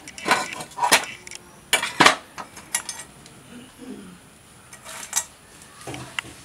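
Irregular metal clinks and knocks of tools and parts being handled while a motorcycle stator plate is fitted, in short clusters, loudest about two seconds in.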